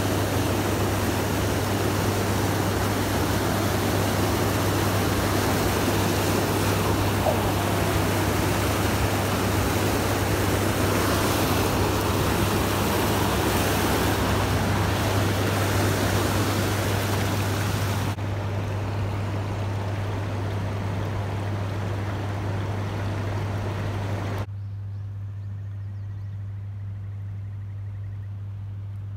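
Water rushing past a moving boat on a river, with a steady low hum underneath. The rush steps down sharply after about eighteen seconds and again about six seconds later, leaving mostly the hum.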